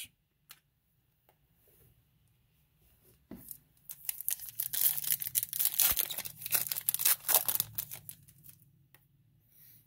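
Foil trading-card pack being torn open by hand, its wrapper crinkling in a dense, rapid crackle that starts about three and a half seconds in and lasts some five seconds before dying away.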